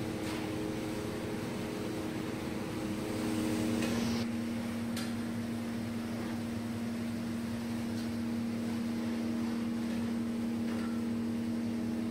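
Steady mechanical hum with an even hiss and a constant drone that drops slightly in pitch about four seconds in, with a few faint clicks.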